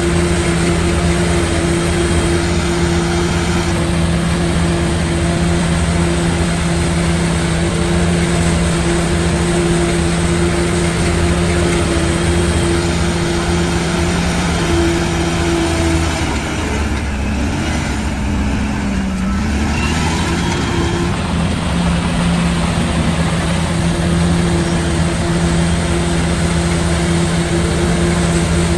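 Heavy diesel construction machinery engine running steadily with a constant hum. About two-thirds of the way through its pitch briefly sags and then comes back up, as the engine takes a load and recovers.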